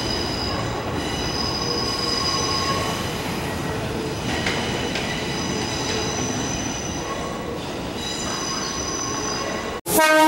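Tobu 8000-series electric train rolling slowly on curved track, its wheels squealing in high tones that fade in and out. Near the end the sound cuts off abruptly and a louder, pitched sound begins.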